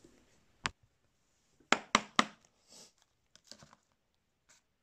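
Sharp clicks and taps of hard plastic trading-card holders being handled and set down on a desk: one click about half a second in, three quick ones around two seconds in, then a few fainter ticks.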